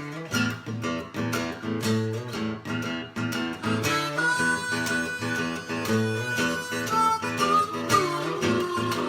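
Acoustic guitar strumming a steady blues rhythm. About four seconds in, a harmonica comes in with long held notes, bending notes near the end.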